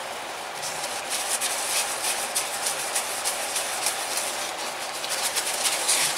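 Paper towel rubbing and wiping over the piston top and cylinder of a Webra T4 60 model engine in quick, irregular strokes, growing fuller about half a second in.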